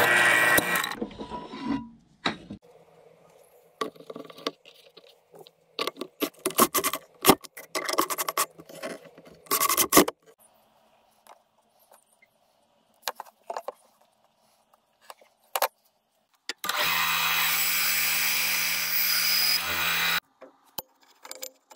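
A power drill boring into a wooden block stops about a second in. Then come irregular scraping and clicking strokes as a screw is turned by hand with a screwdriver into wood. Near the end a band saw runs with a steady hum for about three seconds and then stops.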